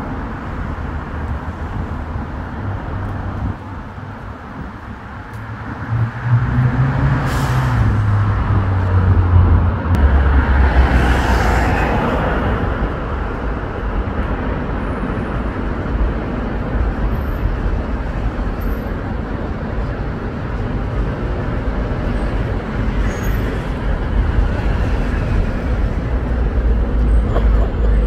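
Road traffic on a city street: cars and vans driving past in a steady stream. A heavier vehicle passes with a louder engine rumble from about six to twelve seconds in, with a short hiss about seven seconds in.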